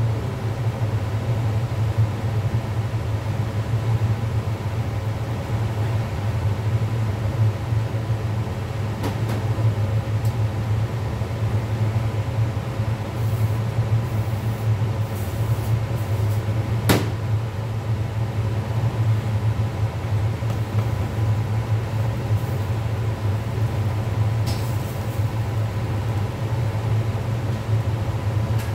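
Steady low mechanical hum of commercial kitchen equipment, with a single sharp click about seventeen seconds in.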